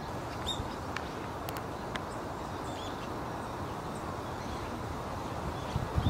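Outdoor ambience: a steady rushing hiss with a few short bird calls and some faint clicks.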